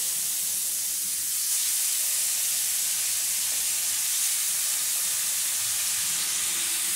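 Pieces of fish shallow-frying in hot mustard oil in a nonstick frying pan: a steady sizzling hiss as the pieces are laid in one by one.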